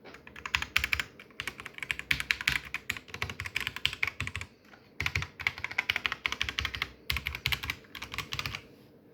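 Typing on an Asus TUF K3 Gen 2 keyboard: rapid runs of sharp key clicks in several bursts with short pauses between them, stopping shortly before the end.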